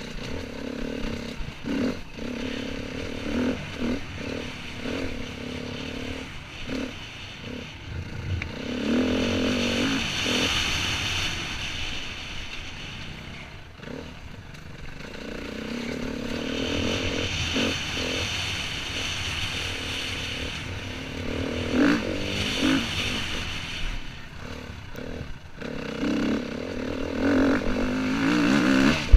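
Enduro dirt bike engine revving up and dropping back again and again as the throttle is worked over a rough, rocky trail, with knocks and clatter from the bike over the ground. The revs run hardest near the end.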